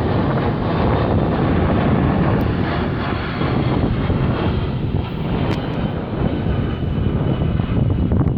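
Aircraft passing overhead: a loud, steady engine rumble with a faint high whine in the middle.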